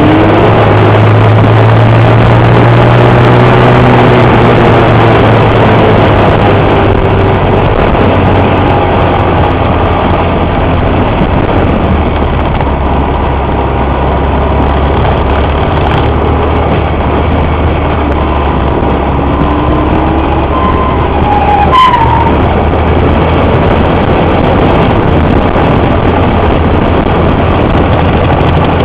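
Honda Cub's single-cylinder four-stroke engine running steadily under way, with wind rushing over the microphone; the engine note drops to a lower pitch about 12 seconds in and holds there. A single sharp knock about 22 seconds in.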